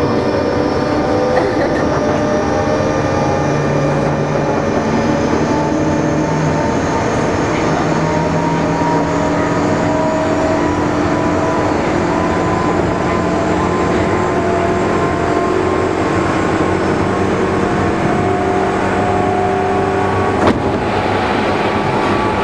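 Running noise of a Chuo Rapid Line electric train heard from inside the carriage, with several whining tones from the motors drifting slowly in pitch. Near the end there is a sharp knock and a louder rush as a train passes close by on the adjacent track.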